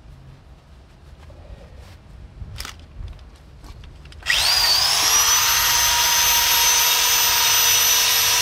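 Corded electric drill fitted with a red abrasive disc, starting up about four seconds in after a few faint handling sounds: its high whine rises briefly, then holds steady and loud as it cleans the hull-mounted refrigeration condenser for new anodes.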